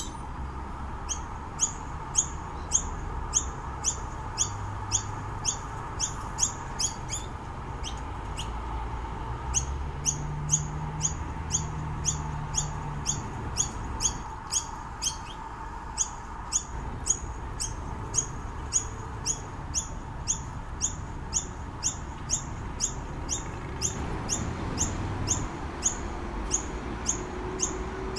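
Noisy miner calling with short, high chirps repeated nearly twice a second, with a couple of brief pauses.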